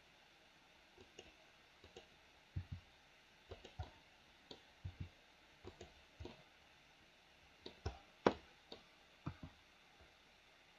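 Computer mouse and keyboard clicks: about twenty short, faint clicks at irregular intervals, some in quick pairs, the loudest about eight seconds in.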